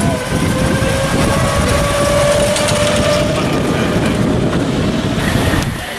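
Miniature ride-on passenger train passing close by, its wheels rumbling and clicking along the track, with a faint steady whine for a few seconds.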